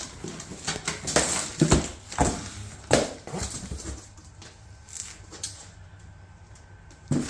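Irregular rustling and knocking of packaging being handled as a shipping box is opened and unpacked, busier in the first few seconds and fainter after.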